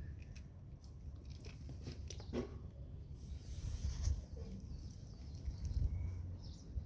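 Dog chewing treats: faint, irregular short crunches and clicks over a low rumble.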